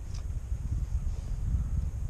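Wind buffeting the microphone: a low, unsteady rumble, with one faint click just after the start.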